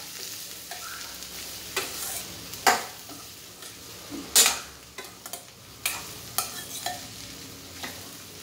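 Steel spoon stirring chopped long beans in a stainless-steel kadhai, scraping and clinking against the pan at irregular moments, the loudest about halfway through. Under it runs a steady sizzle of the beans frying in hot oil with cumin.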